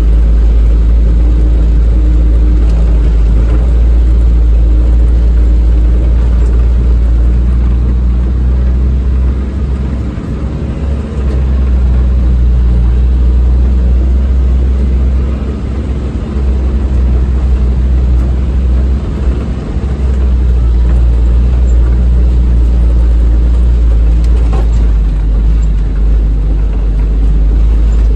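Engine of a Renault R2087 van heard from inside the cab while driving: a loud, steady low drone that eases off briefly about ten, sixteen and nineteen seconds in.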